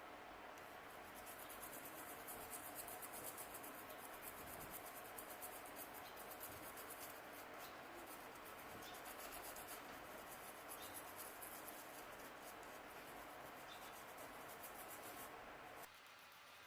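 Faint rapid scratchy scrubbing of a brush working thinner over a phone's mainboard to clean off corrosion left by water, stopping near the end.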